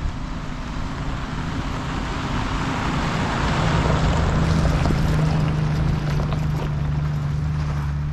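Toyota LandCruiser 75-series Troopy driving past on a gravel track: a steady low engine hum, with engine and tyre noise growing louder as it passes about four seconds in.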